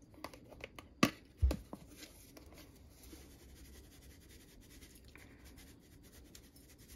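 Blue plastic flip-top cap of a black pepper shaker being handled and snapped open: a sharp click about a second in and a dull knock just after, then only faint handling.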